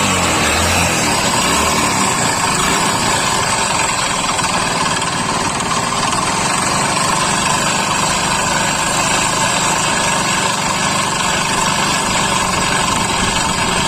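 Hero Honda Splendor's single-cylinder four-stroke engine running steadily with a rough 'ghar ghar' rattle, a very bad-sounding noise that the mechanic takes for internal engine damage needing a full engine opening.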